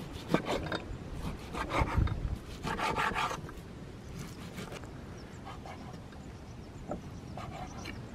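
Large knife slicing raw lamb on a wooden cutting board: a run of cutting strokes and knocks of the blade on the wood, busiest in the first few seconds, then only a few faint taps.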